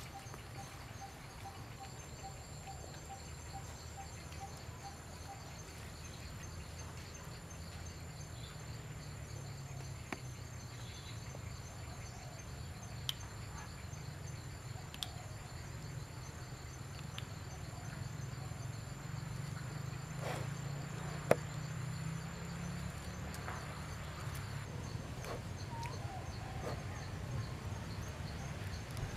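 Insects trilling steadily in several high tones over a low rumble, with a few sharp clicks, the loudest about 21 seconds in.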